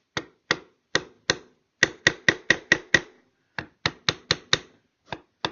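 Chisel being struck with a series of light, sharp taps to cut the inlet outline into a wooden rifle stock. A few spaced taps, then two quick runs of about five or six taps, and one more near the end.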